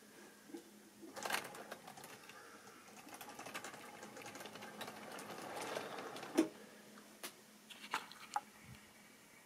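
Model train of tank wagons running along the track: a small electric motor's rattling whirr with wheels clicking over the rail joints, growing louder to a sharp click about six seconds in, then fading to scattered clicks.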